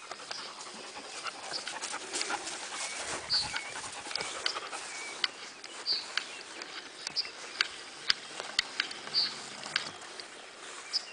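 Long-haired German Shepherd panting, with many short sharp clicks and ticks scattered through the breathing.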